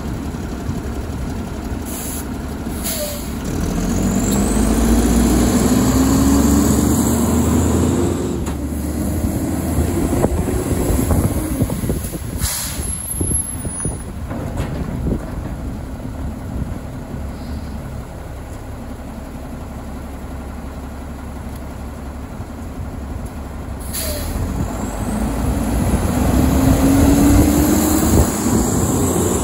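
Autocar WXLL garbage truck's diesel engine revving up twice as the truck pulls away and moves off, each time in a rising pitch. Short hisses of its air brakes come in between.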